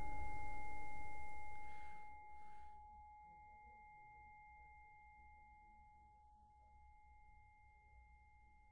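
A sustained ringing tone with two steady pitches, like a struck singing bowl, over a low rushing noise that fades out within the first three seconds. After that it is near silence with only the faint tone left.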